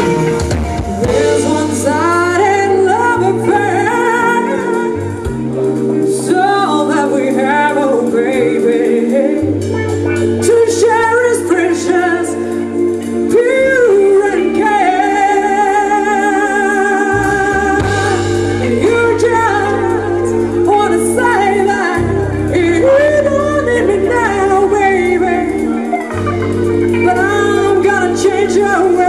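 Live band performance: a woman sings a jazzy pop song over electric guitars and bass, holding one long note with vibrato about halfway through.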